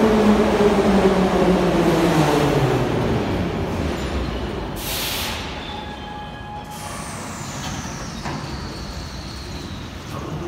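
Soviet-type 81-717 metro train pulling into a station and braking to a stop. Its motor whine falls steadily in pitch over the first three seconds and the running noise fades. About five seconds in comes a short, sharp hiss of compressed air from the brakes, and then only a low hum remains.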